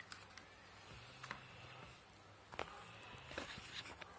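Faint handling noise: a few light clicks and taps as the opened plastic base of a table lamp is moved and set down on a tabletop, the clearest about two and a half seconds in.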